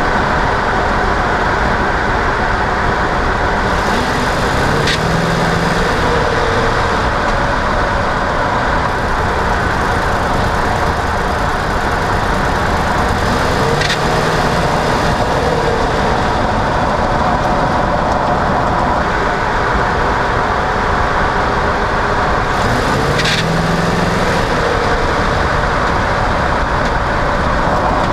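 Chevrolet Silverado 2500HD pickup driving with steady engine and road noise. Three times, roughly nine seconds apart, the 6L90 automatic transmission kicks down: engine pitch climbs and a split-second click sounds at the shift. This is the quick ratcheting noise on downshift that the owner suspects may come from the torque converter.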